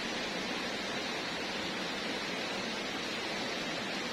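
River water rushing steadily over rocks and rapids, an even hiss with no breaks.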